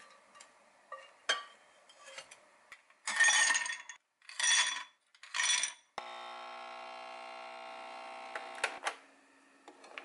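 A few light clinks, then three loud rattles of ice cubes tumbling into a glass. A Nespresso Pixie capsule machine's pump then hums steadily for about three seconds as it pours espresso over the ice, ending with a couple of clicks.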